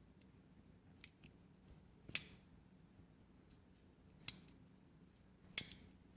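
Sharp metallic clicks from a Ganzo FB760 folding knife's axis lock and blade as it is worked: two faint ticks about a second in, then three loud clicks about two seconds apart.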